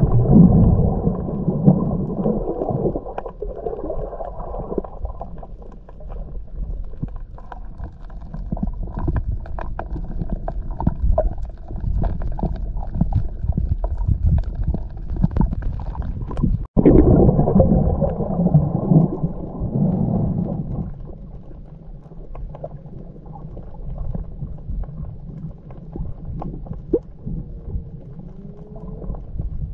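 Muffled underwater sound picked up by a submerged camera: a low rumble of water movement with many small clicks and crackles. It breaks off for an instant a little past halfway.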